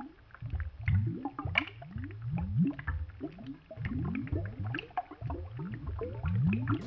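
Chorus of short, low animal calls heard underwater, each one rising in pitch, several a second and overlapping one another.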